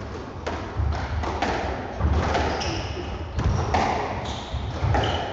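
A squash rally: a run of sharp hits as the ball is struck by the rackets and smacks off the walls and floor, about one every half second to a second, echoing in the court, with brief high squeaks of shoes on the court floor.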